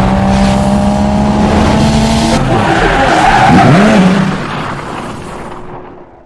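Loud car sound: a steady engine note with tyre skidding. The pitch dips and climbs again in the middle, then it all fades out near the end.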